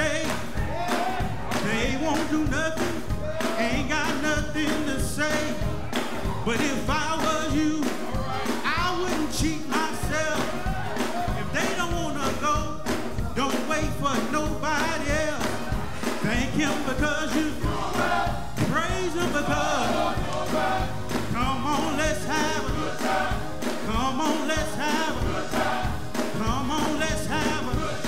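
Live gospel music: a male lead singer singing through a microphone over a band with a steady beat, with a male chorus backing him.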